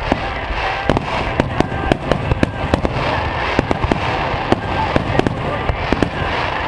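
Fireworks going off in quick succession: many sharp bangs and crackling pops, several a second at an uneven pace.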